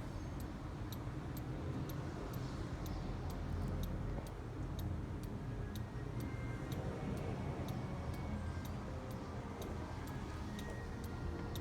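Black Forest 8-day cuckoo clock's pendulum movement ticking steadily, about two to three ticks a second, its freshly overhauled movement running evenly.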